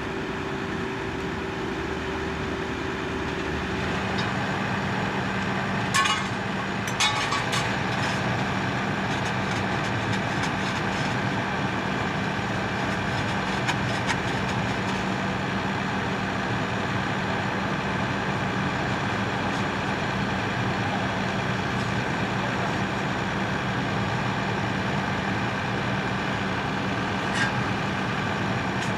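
Engine running steadily at idle, its pitch dropping slightly about four seconds in, with a few sharp metallic clinks about six to eight seconds in and once near the end.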